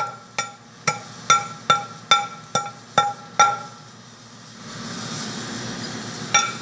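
Steel bar striking the welded steel centre of a combine wheel rim, about two blows a second, each one ringing with the same clear metallic tones. The blows stop about three and a half seconds in, a steady rushing noise follows, and the blows resume just before the end.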